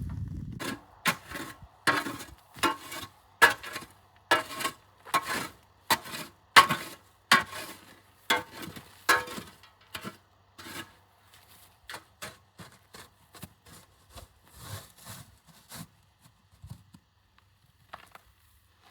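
A series of scraping and knocking strokes of a hard tool or object, roughly one a second, loud at first and growing fainter and sparser after about ten seconds.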